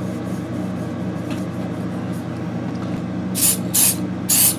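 Aerosol can of UltraLease EPX mold release hissing in three short spray bursts, beginning past the three-second mark, as a coat of release agent goes onto the first half of a silicone rubber mold before the second half is poured. A steady low hum runs underneath.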